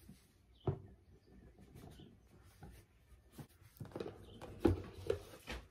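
Cardboard box being handled and opened: scattered knocks, scrapes and rustles, a sharp knock just under a second in and a busier run of handling a little after the middle.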